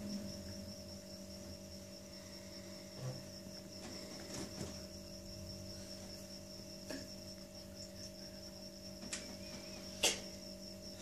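Quiet room tone: a steady low electrical hum under a continuous high-pitched cricket trill, with a few soft clicks, the sharpest about ten seconds in.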